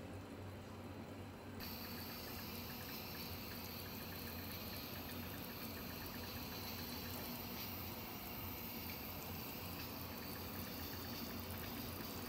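Soup simmering in a clay pot: a steady hiss of bubbling with faint small pops. About a second and a half in, it turns brighter and a little louder.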